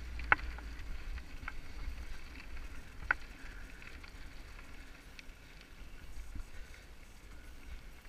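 Mountain bike rolling down a gravel dirt trail: a steady low rumble of tyres on dirt and wind on the helmet camera's microphone, with a few sharp clicks and rattles from the bike over stones, easing off toward the end.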